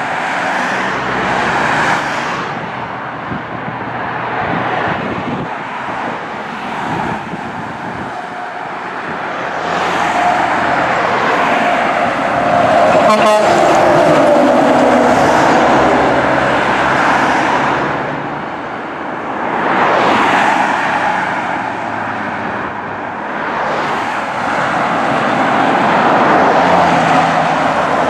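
Road traffic passing on a busy highway: cars and heavy diesel trucks go by one after another, rising and fading. About halfway through a dump truck passes close, its engine loudest, with a steady tone and a falling pitch as it goes by.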